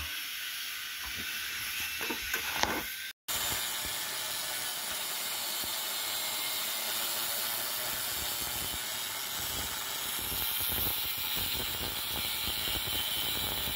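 Ryobi angle grinder cutting down a steel plate: a steady, unbroken abrasive grinding hiss that starts about three seconds in, after a short break, and runs on without letting up.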